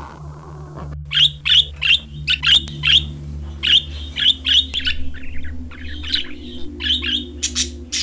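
Blue-headed parrots calling: a run of short, sharp squawks, two to three a second, starting about a second in, over a steady low hum.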